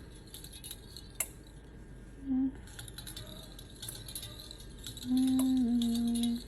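Faint clicks and light scrapes of tools on the phone's glass, with a short hum about two seconds in and a longer, louder hum near the end that steps down slightly in pitch.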